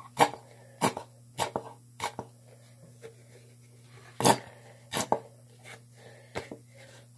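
A nearly empty plastic squeeze bottle of white glue squeezed hard over and over, giving short sharp pops as it spurts out the last of the glue. Four pops come about every half second, then after a pause a few more from about four seconds in.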